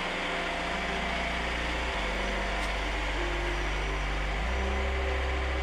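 A machine engine running steadily with a low hum, its pitch shifting abruptly twice.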